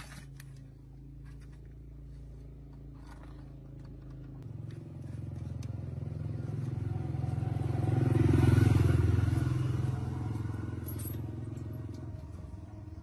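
A motor engine running, its sound growing louder to a peak a little past the middle and then easing off.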